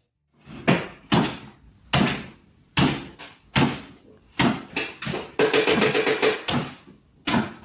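A rapid, irregular series of loud knocks or bangs, about a dozen, each ringing briefly.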